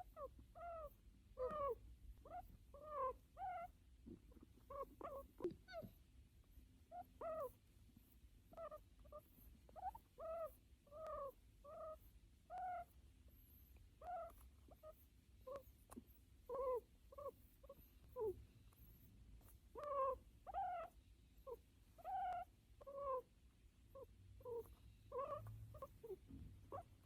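American guinea pig making short pitched squeaking calls while being petted, each call arching down in pitch, repeated one or two times a second with brief gaps.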